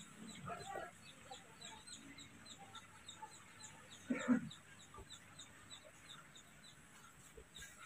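Faint background bird sounds, clucking like fowl, with one louder call about four seconds in, over a steady series of short high chirps about three a second.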